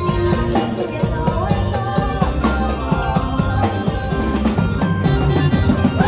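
Isan-style band music: an electronic keyboard playing a melody with bending notes over a steady drum kit beat.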